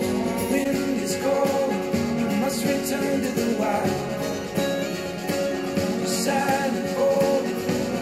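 A rock song with a steady beat played back through studio monitors and picked up by microphones in the room: first through a pair of Yamaha HS8s, then, within the first few seconds, through a pair of Kali Audio IN-8s.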